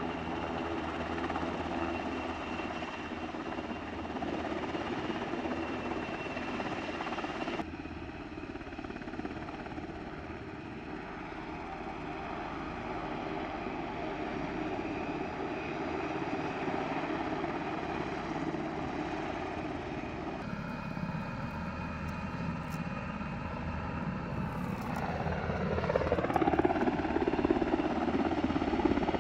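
U.S. Navy H-60 Seahawk helicopters running close by: a steady turbine whine over a low rotor throb. The sound changes abruptly twice. Near the end it grows louder, with a whine that dips and then rises again.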